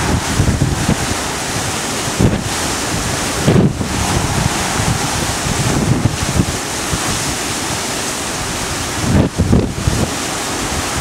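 Strong hurricane wind rushing steadily and buffeting the microphone, with low rumbling gusts hitting it about two, four and nine seconds in.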